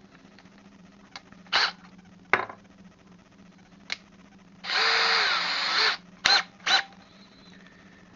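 Small electric drill fitted with a 2 mm bit, run in a few short trigger pulls and one longer run of about a second, its motor pitch dipping and recovering during the long run as if under load.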